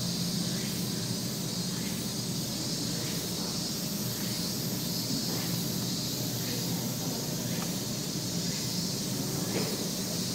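Steady background hiss with a few faint, soft ticks.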